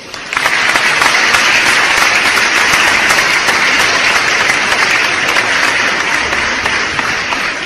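Applause sound effect: a crowd clapping steadily, swelling in quickly at the start and slowly fading near the end.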